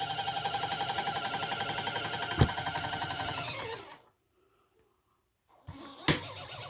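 Small washing machine's motor running with a rapidly pulsing whine, which falls in pitch and winds down to a stop about four seconds in. There is a sharp click midway through and another near the end.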